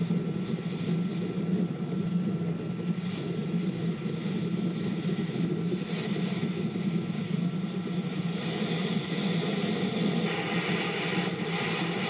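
Gale-force wind blowing across the microphone over breaking lake surf: a steady, rough rushing noise, with the hiss of the breaking waves growing a little stronger near the end.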